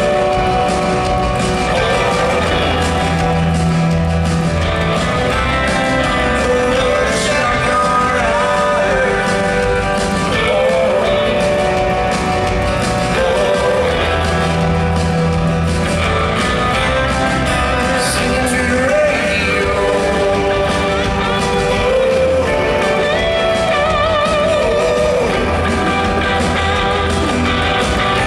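Live country band playing a ballad, with a male lead vocal singing over guitars, sustained keyboard chords and bass.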